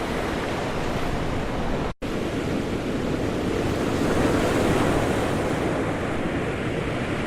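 Ocean waves crashing and rushing on the shore, a steady surf wash. It cuts out for an instant about two seconds in, then starts again, and a wave swells louder around the middle.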